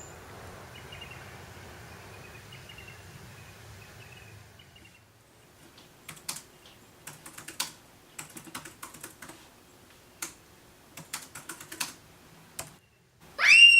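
Irregular sharp clicks of keys being typed on a keyboard, after a few seconds of faint hiss. Just before the end a loud, rising, high-pitched cry starts.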